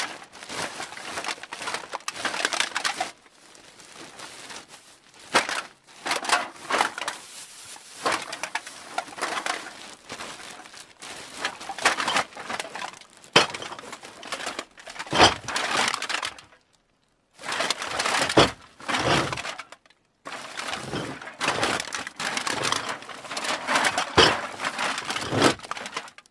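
Cans being dropped and pushed into a bag: rapid clattering and clinking of the cans against each other, mixed with crinkling of the bag, with two short pauses and a sudden stop near the end.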